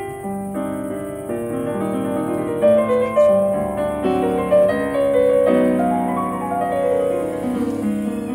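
Grand piano playing a flowing passage of melody over chords, notes following one another every fraction of a second.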